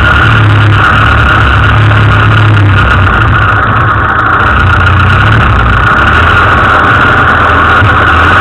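Land Rover engine running steadily at low revs, loud and unchanging.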